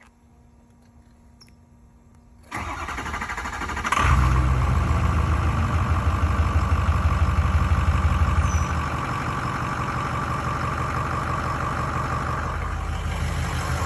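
Cold start of a Ford 6.0 Power Stroke V8 turbodiesel. It cranks about two and a half seconds in and catches a second and a half later. It runs loud and rumbling for several seconds, then settles to a steadier, quieter idle.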